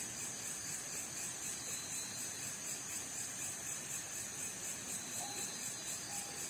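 Night insects such as crickets chirring in a steady high chorus, over a low even hiss.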